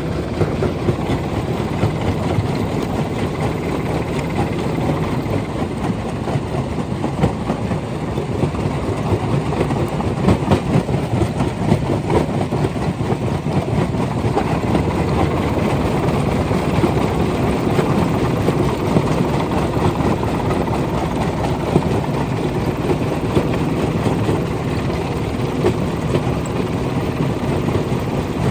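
Rock crusher running: a steady heavy machine drone with frequent small knocks and rattles of stone.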